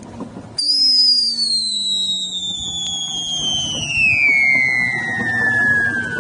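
A man whistling one long, high note that glides slowly and steadily downward, with a faint low hum falling along with it.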